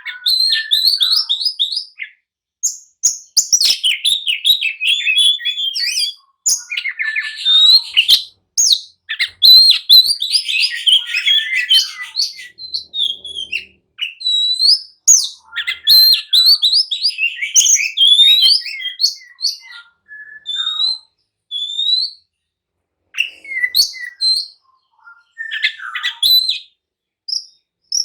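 Oriental magpie-robin (kacer) singing an agitated, full-throated song: fast runs of varied whistles and chirps in bursts of a few seconds, broken by short pauses.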